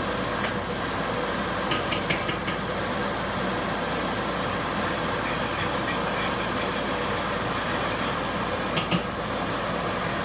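A fork clinks against a saucepan in two short clusters, about two seconds in and again near the end, as gravy is stirred. Under it runs a steady rushing noise.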